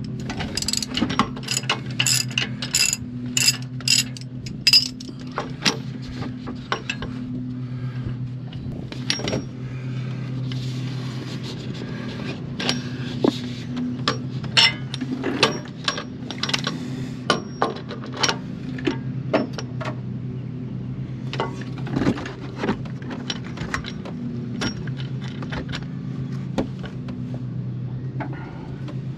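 Hand tools and metal parts under a truck's front suspension: a regular run of ratcheting clicks, about two and a half a second, for the first few seconds, then scattered metallic clicks and knocks as a new shock absorber is worked into position. A steady low hum runs underneath.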